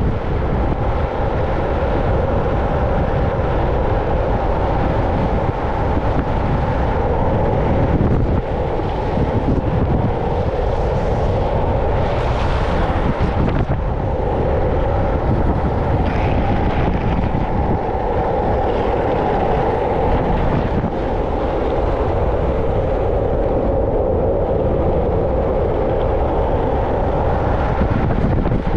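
Wind rushing over the microphone at high downhill speed over a steady rolling rumble from longboard urethane wheels on rough asphalt.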